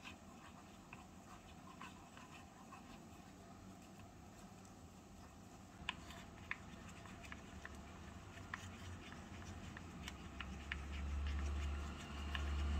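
A small spoon stirring batter in a tiny stainless steel cup, scraping and ticking against the metal with scattered sharp clicks. About ten seconds in, a low rumble comes up underneath and becomes the loudest sound.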